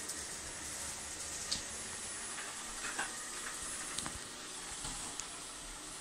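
ILIFE V50 Pro robot vacuum running: a steady hiss from its suction and brushes, with a few light clicks about one and a half, three, four and five seconds in.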